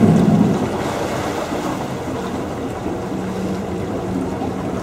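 Water bus (vaporetto) under way: a steady engine hum with the wash of the canal water and wind on the microphone.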